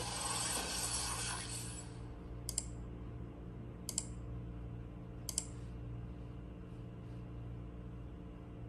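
Three sharp double clicks about a second and a half apart, then two fainter ticks: fingertip taps on an iPhone touchscreen. A hiss fades out in the first two seconds, over a faint steady hum.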